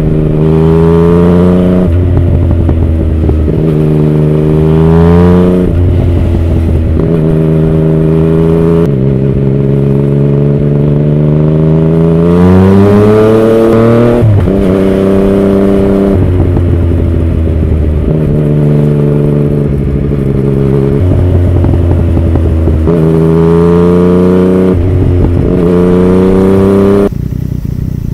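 Yamaha MT-09's inline three-cylinder engine running through an Akrapovic carbon full exhaust system while riding. Its pitch climbs and falls again and again with the throttle. The sound drops suddenly in level near the end.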